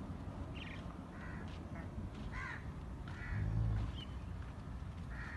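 Faint short bird calls repeating about once a second, with a brief low rumble a little past three seconds in.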